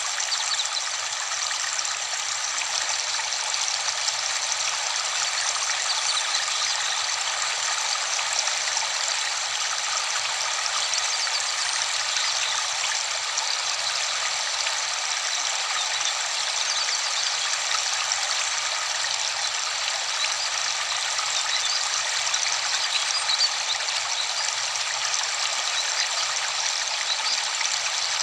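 Steady rushing of falling water from a waterfall, an even, unbroken splashing noise.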